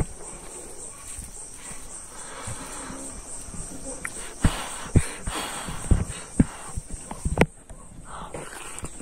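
Insects, crickets among them, keep up a steady high-pitched shrilling. About halfway through comes a run of short clicks and knocks as fingers mix rice on a metal plate and food is eaten.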